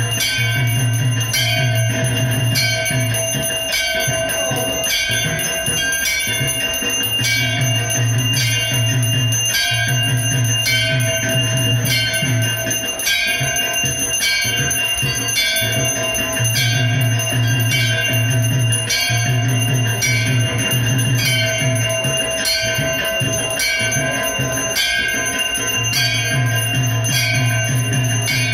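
Temple bells ringing continuously in a quick, even rhythm during Hindu worship, several ringing tones sustained over the strikes, with a low hum that comes and goes every few seconds.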